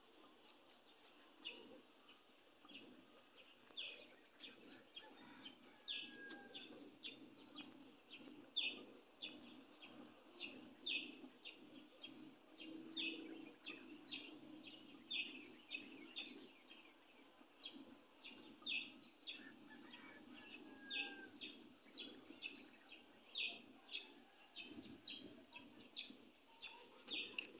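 Faint scratching of a felt-tip whiteboard marker writing letters on a whiteboard: short, sharp strokes, one or two a second, in an uneven rhythm.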